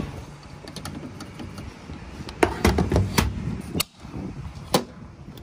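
Car refuelling hardware being handled: the fuel nozzle pulled from the filler, then the fuel cap and filler flap closed by hand. Several sharp clicks and knocks come from about two and a half seconds in, and the last, sharpest snap near the end is the flap shutting.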